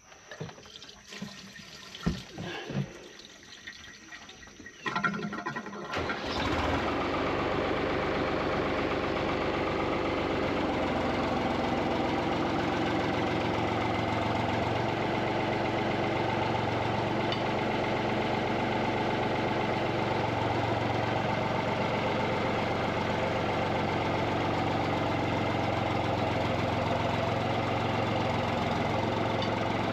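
A few light knocks, then a tractor's diesel engine cranks and starts about five seconds in and runs steadily.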